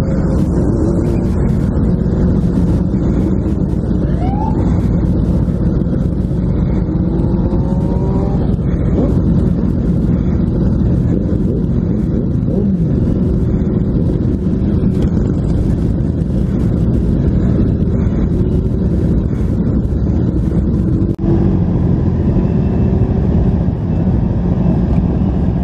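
Sport motorcycle engine running at road speed, heard from the rider's helmet camera with wind noise on the microphone. A few short rising notes rise over the steady drone now and then.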